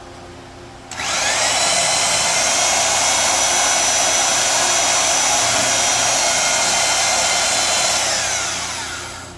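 Electric power saw cutting through the steel frame tube of a small quad. It starts abruptly about a second in, runs at a steady high whine with a cutting hiss, then winds down with falling pitch near the end.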